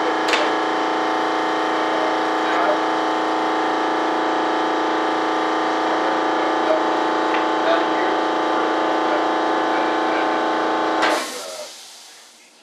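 A machine running steadily with a loud, even hum of several steady tones over a hiss, shut off about eleven seconds in, its sound falling away quickly.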